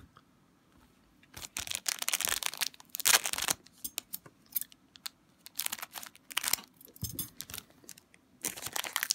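Foil wrapper of an Upper Deck Portfolio hockey card pack crinkling in bursts as it is handled, then torn open near the end.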